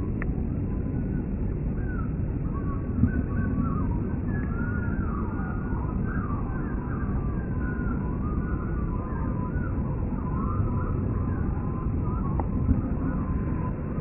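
Steady low rumble of a jet overhead, with strange warbling tones gliding up and down above it, like a faint wavering siren, and a thin steady whine beneath them.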